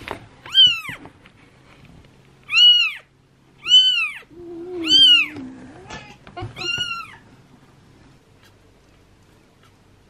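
A 12-day-old kitten mewing five times while it is picked up and handled. The cries are high-pitched and short, each rising and then falling in pitch.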